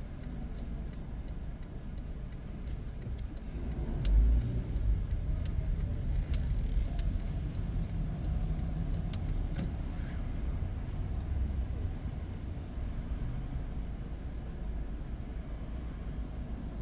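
Car heard from inside the cabin while driving: a steady low engine and road rumble. About four seconds in comes a short low thump, and the rumble stays louder for several seconds after it.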